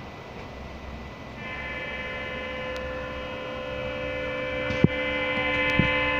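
Locomotive horn sounding a long steady multi-tone chord, starting about a second in and growing louder, over the running rumble of a passenger train at speed. Two sharp knocks come near the end.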